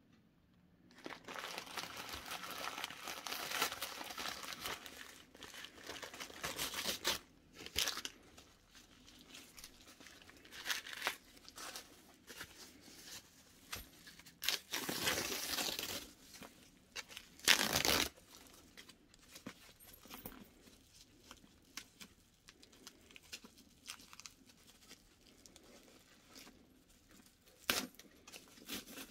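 Packaging crinkling and rustling as a purchase is unwrapped by hand, in irregular bursts with two louder ones past the middle.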